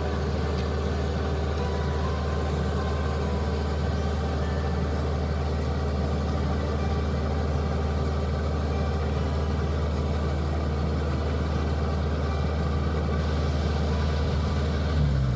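Diesel engine of a Kubota combine harvester running steadily while it unloads paddy grain through its unloading auger, a low even drone with no change in speed.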